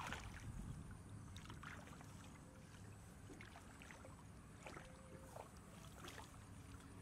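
Faint sloshing and scattered small splashes of hands groping through shallow, muddy floodwater among grass.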